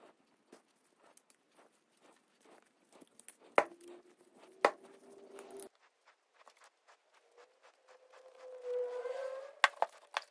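Small metal clicks and clinks as a tie rod end is threaded by hand onto its greased steering tie rod and handled on the bench, with two sharp knocks about three and a half and four and a half seconds in. Near the end comes a longer whirring as a steel tape measure is pulled out along the rod, followed by a couple of clicks.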